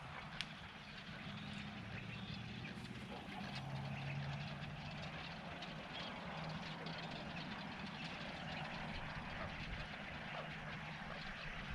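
Low, steady drone of a distant engine, its pitch drifting slightly, over outdoor background hiss, with a single sharp click about half a second in.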